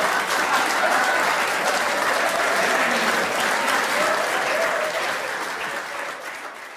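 Studio audience applauding, with laughter, the applause dying away over the last couple of seconds.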